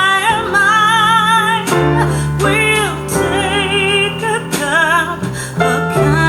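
A song with a singing voice holding wavering, vibrato notes over a steady bass line, played back through Audio Phonar AP-16 bookshelf speakers driven by a tube amplifier.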